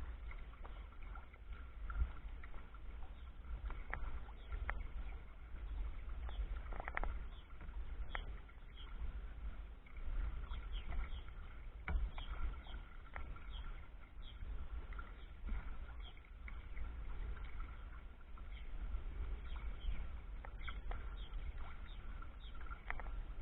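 Water splashing and trickling along the hull of a sea kayak under sail, with many small irregular clicks and ticks, over a steady low rumble of wind on the microphone.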